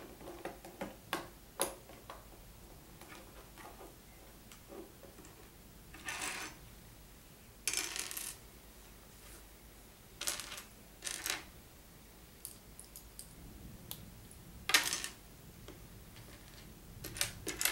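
Small plastic Lego pieces clicking and clattering as they are picked out of a pile and handled, with a few short rustles in between; the loudest clatter comes near the end.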